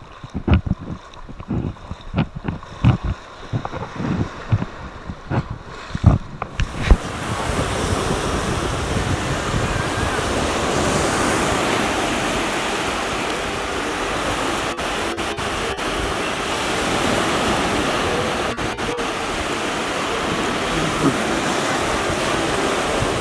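Irregular low thumps of wind buffeting the microphone for about the first seven seconds, then a steady wash of small surf waves breaking along the beach.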